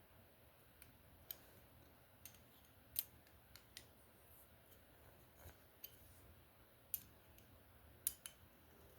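Scattered small clicks at irregular intervals, a few louder than the rest, as the loose screws on a DNT QD150 quick-disconnect scope mount are tightened.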